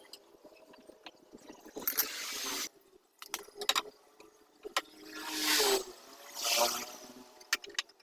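Kipor diesel generator being cranked by hand, three short pulls with clicks and rattles in between. The engine does not catch and run: it fails to start.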